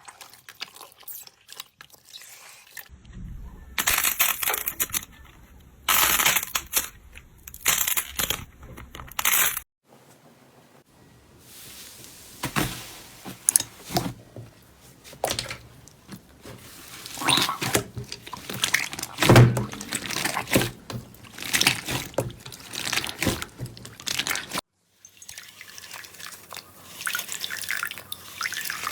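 Slime being squeezed and pressed by hand, making wet squelching, clicking and popping sounds in quick strokes. The sound changes abruptly several times as one slime clip gives way to another.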